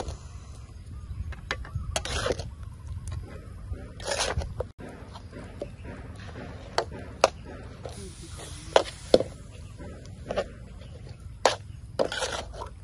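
A metal ladle clinks and scrapes against a steel wok as a marinated pork leg is turned in its sauce. There are sharp knocks scattered throughout and a few longer scrapes.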